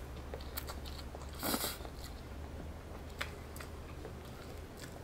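Close-up eating sounds of palabok rice noodles: chewing with scattered crisp clicks, and one short loud slurp about one and a half seconds in.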